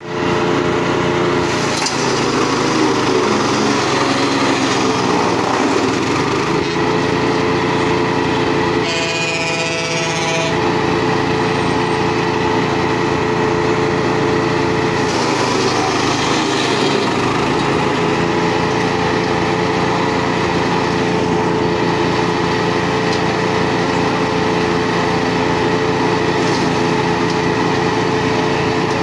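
Petrol-engine wood chipper running at high speed as bundles of thin dry sticks are fed into it. Its steady engine note sags and turns rough a few times as the sticks are chipped, then recovers.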